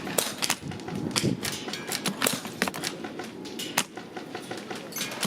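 Airsoft guns firing at a shooting range: scattered sharp clicks and snaps at irregular intervals, several a second in places, over a steady rumble.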